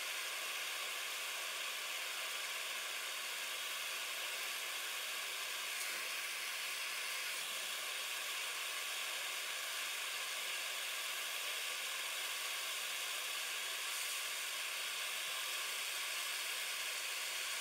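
Steady hiss of a gas flame burning under a wire mesh as it heats a lump of solder.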